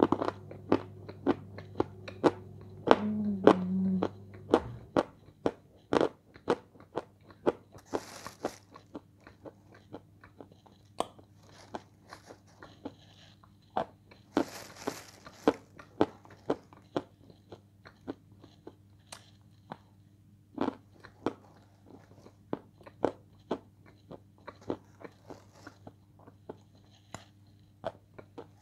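A person biting and chewing dry edible light Turkestan clay, with crisp crunches about one or two a second. There is a brief low hum about three seconds in.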